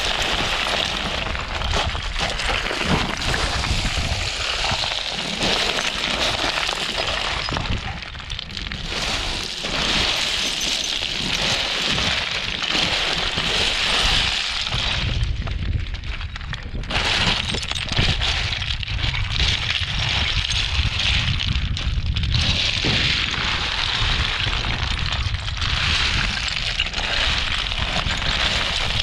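Running shoes crunching and sliding step after step through loose rock scree, a continuous crackle of shifting stones over a low rumble.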